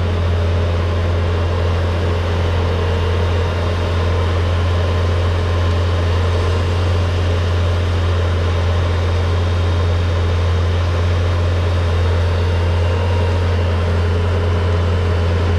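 Vehicle engine running steadily with a loud, unchanging low hum.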